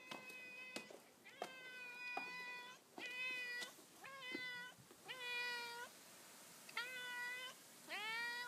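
Black-and-white long-haired domestic cat meowing about seven times in a row, some calls drawn out and the last one rising in pitch, as it comes up to greet its owner.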